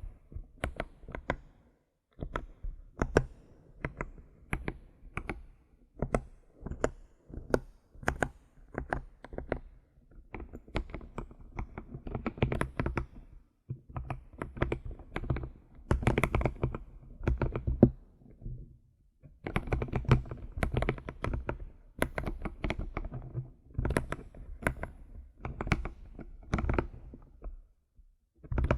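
Computer keyboard being typed on in runs of quick key clicks, with short pauses every few seconds.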